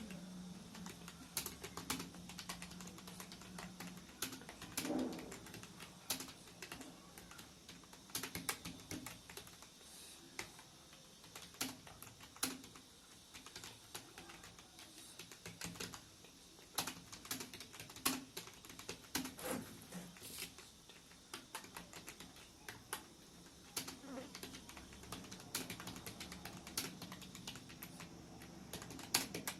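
Computer keyboard being typed on steadily, keystrokes clicking in quick, irregular runs with brief pauses. A faint low hum sits under the first few seconds.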